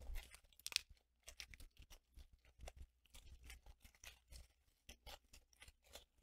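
Faint crackling and rustling of thin white wrapping being pulled apart by hand, many small irregular crinkles, slightly stronger just under a second in.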